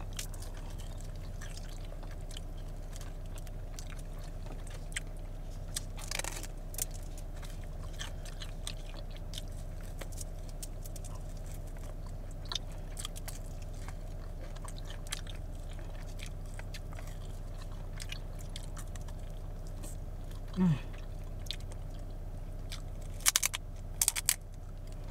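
Close-up chewing and biting into crunchy fried food, with sharp crunches about six seconds in and a few more near the end. A steady low hum of the car runs underneath.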